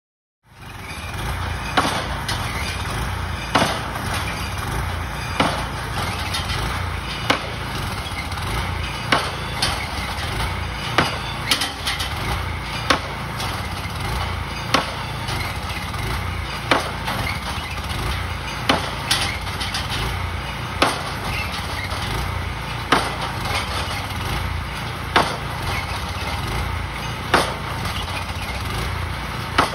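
Barge-mounted pile driver driving a dock piling: an engine running steadily, with a sharp knock from the hammer striking the piling about every two seconds.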